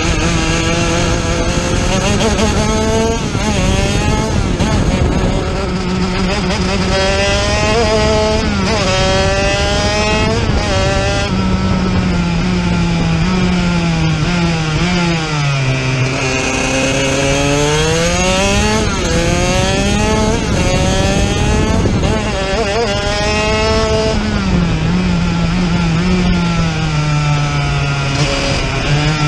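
Racing kart engine heard from on board at full throttle. Its pitch climbs and drops again and again as the revs rise and fall, with a long, deep dip and climb about halfway through.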